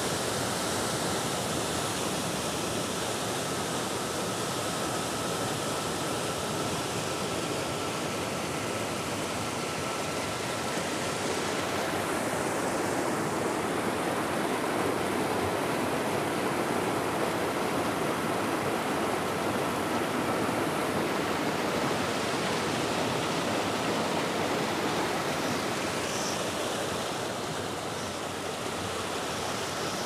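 Waterfall and rapids rushing over rock: a loud, steady roar of falling and churning water.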